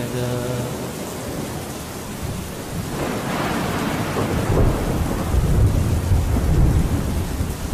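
Steady rain with a thunderstorm. Thunder breaks about three seconds in and rolls on as a deep low rumble through the second half.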